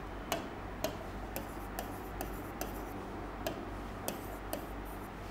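Stylus tapping and rubbing on an interactive display's screen while small circles are drawn: a dozen or so short sharp ticks, about two a second.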